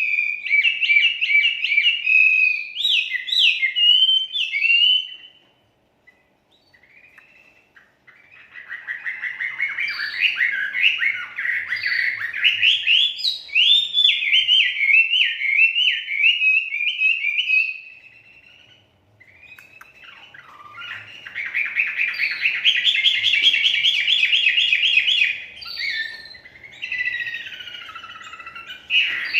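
A caged wambei songbird singing in long, fast bouts of high repeated chirps and sweeping notes, breaking off briefly twice before starting again.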